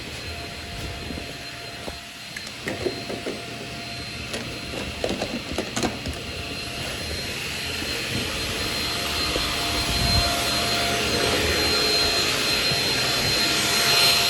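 Shark Rocket stick vacuum running on carpeted stairs, a steady motor whine with a few light knocks in the first half, growing louder in the second half.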